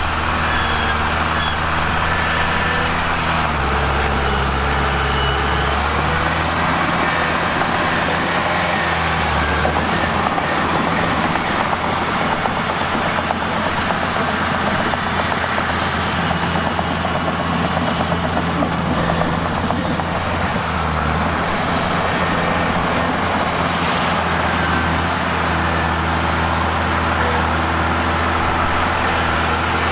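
Mitsubishi bulldozer's diesel engine running steadily under working load. Its note drops around four seconds in and shifts a few more times, with a rougher, noisier stretch in the middle.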